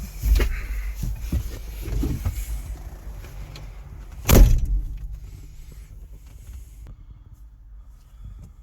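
Knocks and clunks inside a tractor cab, with one loud bang about four and a half seconds in. Underneath runs the low steady rumble of the Case 995XL's turbo diesel engine idling.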